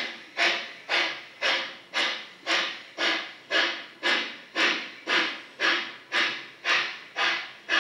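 Model steam locomotive's sound unit chuffing steadily at about two beats a second, each beat a sharp puff that fades into a hiss.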